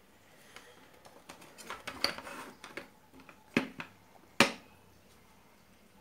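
Handling noise from an opened AC adapter's plastic case and circuit board being moved about: light rustling and small clicks, then two sharp clicks about a second apart, the second the loudest.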